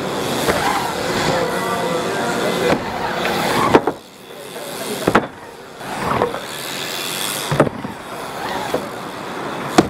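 BMX bike tyres rolling fast over wooden ramp surfaces, a whirring that rises and falls as the riders pump through the transitions, with a few sharp knocks of wheels hitting the wood.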